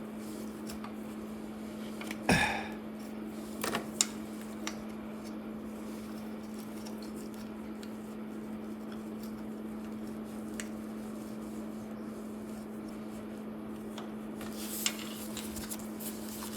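A few sharp metallic clinks and taps of a wrench working the engine's exhaust nuts, the loudest about two seconds in, a small cluster around four seconds and another near the end, over a steady low hum.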